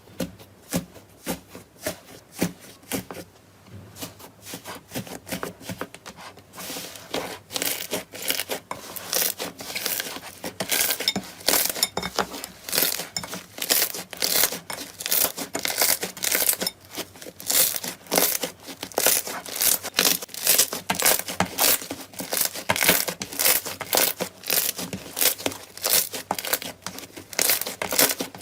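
Slime being squeezed and worked, giving a crisp crackling and popping. It is sparse at first and becomes dense and busy about six seconds in.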